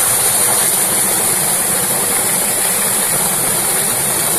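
Water gushing hard from a pipe outlet and splashing into a pool, a loud, steady rush.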